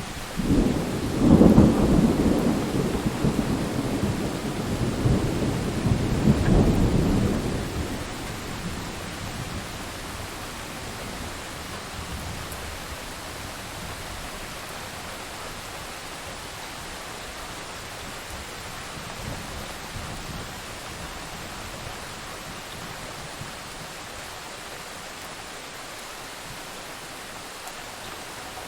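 Steady heavy rain with a long roll of thunder over the first several seconds that swells twice before dying away, leaving only the even hiss of the rain.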